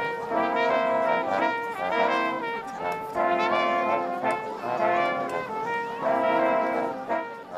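Brass ensemble of trumpets and trombones playing held chords in short phrases.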